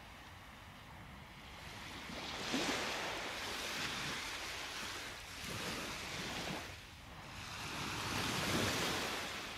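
Ocean surf washing in, swelling and falling back several times.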